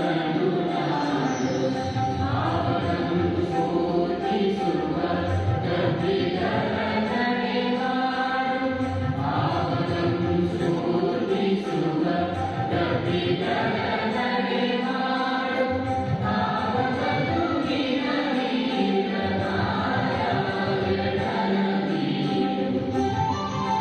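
A large group singing a Kannada song together in chorus, with a steady held note underneath the voices.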